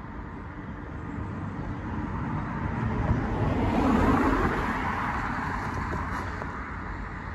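A car driving past over the road, its engine and tyre noise swelling to a peak about four seconds in and then fading.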